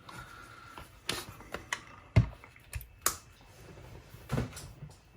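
Handling clicks and knocks of a Sony WM-D6C Walkman being taken out of its case: about half a dozen irregular sharp clicks, the loudest a little past two seconds in.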